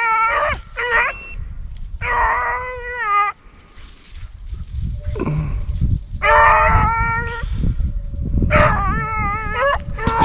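Deer hounds bawling while running a jumped buck: long drawn-out bays from more than one dog, about five in a row with short gaps, over a steady low rumble.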